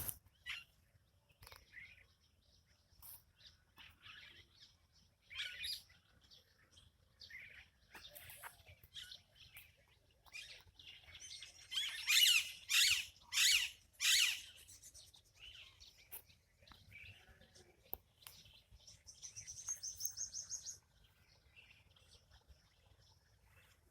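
Several birds chirping and calling, short separate calls throughout, with a run of four loud calls near the middle and a fast high trill a few seconds from the end.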